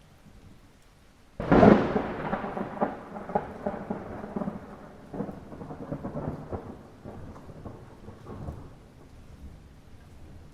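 A sudden thunderclap about a second and a half in, rolling and crackling as it fades over several seconds, over light rain.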